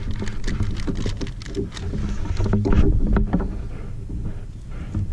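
Handling noise on a plastic fishing kayak: an irregular run of clicks, knocks and light thumps as gear is worked on the deck, with short squeaks among them and the heaviest thumps about three seconds in.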